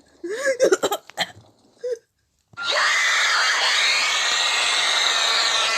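A few short cartoon voice sounds, then a brief silence. About two and a half seconds in, a loud, continuous screaming sound effect starts and keeps going.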